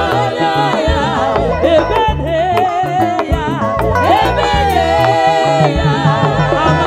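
Three women singing together into microphones, with vibrato on held notes, over a live band's drums and repeating bass line, all amplified through a PA.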